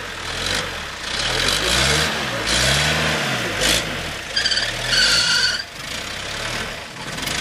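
Small four-wheel-drive off-roader's engine revving up and down under load as it crawls over rough ground. About halfway through, a high steady tone sounds for about a second.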